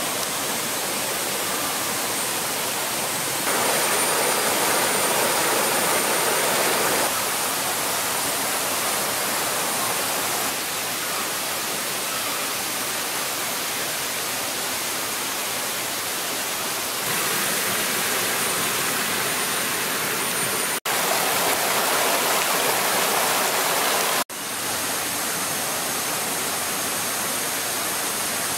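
Rushing water of a rocky rainforest stream, a steady hiss that steps up and down in level at several cuts, with two brief drop-outs in the last third.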